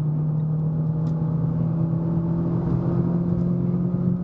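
Renault Sandero RS's 2.0-litre four-cylinder engine accelerating uphill under load through a modified exhaust, its pitch rising slowly and steadily as the revs climb.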